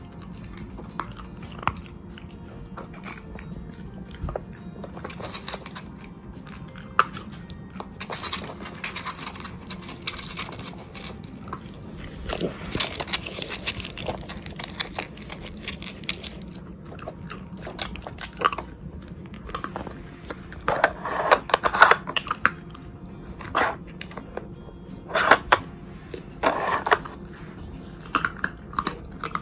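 A beagle working a plastic dog puzzle toy (Nina Ottosson Dog Brick) and eating the treats from it: irregular clacks and scrapes of hard plastic, with crunching and chewing. The clatter is busiest and loudest in the last third.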